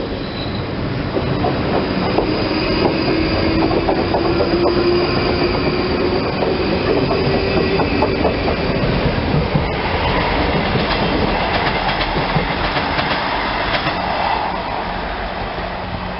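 Class 31 diesel locomotive towing a steam locomotive, running close by: the diesel's engine note rises slowly as it pulls away, with wheels clattering over rail joints and some wheel squeal in the second half.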